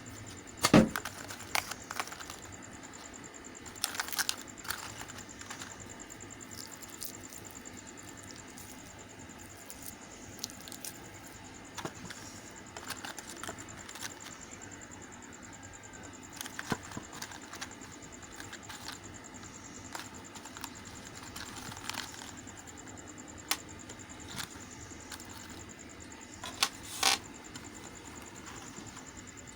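Knife cutting through a bar of white soap: crisp cracks and crumbling clicks at irregular intervals, the loudest about a second in, with further bursts of crackling later on.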